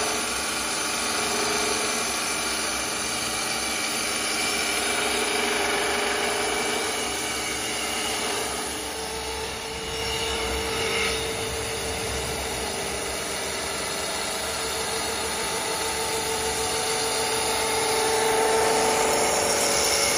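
WS-L1530A automatic CNC wood lathe running, its spinning abrasive brush wheel sanding a turned wooden spindle: a steady mechanical hum with a held tone over a rubbing hiss.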